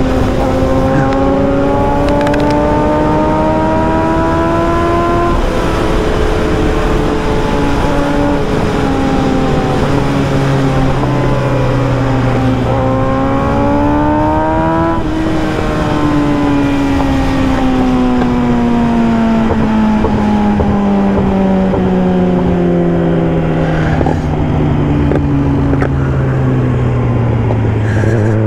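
Yamaha YZF-R6 inline-four engine under way on the road, with rushing noise throughout. The revs climb with a drop at a gear change about five seconds in, climb quickly again around thirteen to fifteen seconds, then fall steadily for over ten seconds as the bike slows. They pick up again at the very end.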